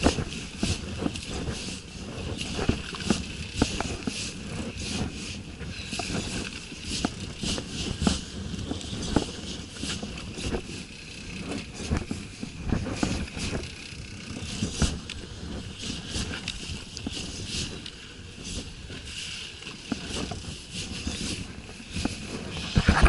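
Steady wind and water noise aboard a small fishing boat at sea, broken by frequent, irregular clicks and knocks.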